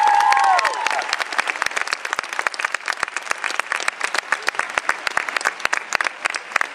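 Audience applauding at the end of a roller skating performance, with the last held note of the music sliding down and stopping about a second in.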